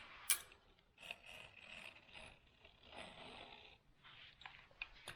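Utility knife drawn along the edge of a window screen frame, slicing off excess fiberglass screen mesh: faint scratchy cutting strokes, each lasting about a second, with a sharp click just after the start.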